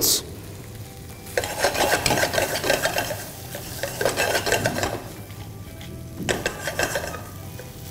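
Spatula stirring sliced onions and dried red chillies as they fry in oil in a nonstick wok, scraping and sizzling. The stirring starts about a second and a half in and eases off near five seconds, then comes back in a shorter spell near the end.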